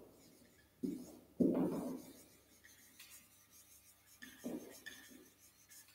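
Marker pen writing on a whiteboard: a few short scratchy strokes, the loudest about a second and a half in, with near silence between them.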